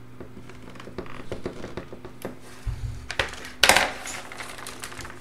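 Plastic LCD bezel of a Dell Latitude D420 laptop being pried off with a flathead screwdriver: a run of small plastic clicks and ticks, with one louder crackling snap about three and a half seconds in as a clip pops loose.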